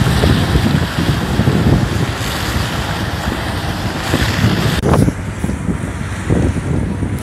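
All-terrain vehicle on low-pressure tyres driving, an uneven low rumble with wind buffeting the microphone. The upper hiss drops away abruptly about five seconds in.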